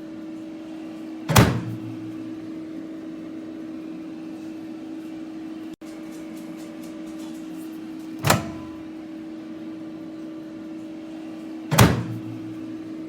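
Countertop microwave oven running with a steady electrical hum, broken by three sharp knocks: one about a second in, one past the middle, and one near the end.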